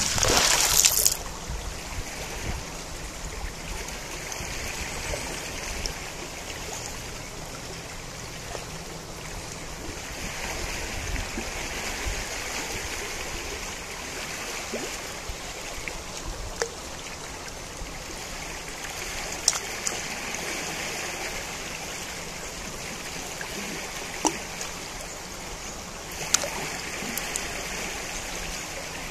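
Steady rush of the Najerilla river's running water. It opens with a loud noisy burst lasting about a second, and a few brief sharp clicks stand out over the flow later on.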